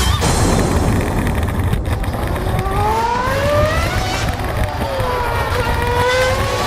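Radio-controlled car driving with loud rumble and wind noise on the camera, its motor whining up and down in pitch as it speeds up and slows from about two and a half seconds in.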